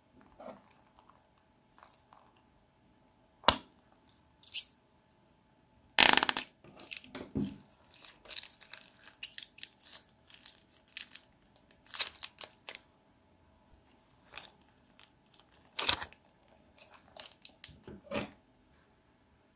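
Plastic zip-lock bags full of slime being handled and squeezed: scattered crinkles and rustles of the plastic, the loudest about six seconds in.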